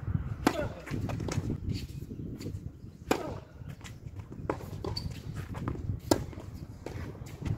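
Tennis ball struck by racquets in a rally: a serve about half a second in, another hit about three seconds in and the loudest, a forehand, about six seconds in, with softer ball bounces and shoe scuffs between the strikes.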